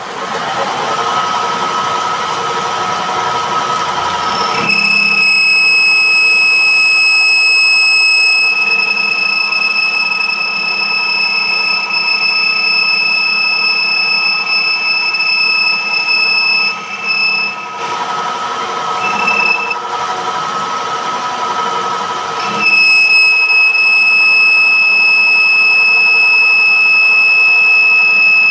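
Metal lathe running while its cutting tool cuts a spinning steel plate. The cutting tool gives a loud, high, steady squeal that starts about five seconds in, breaks off into short chirps for a few seconds past the middle, then comes back.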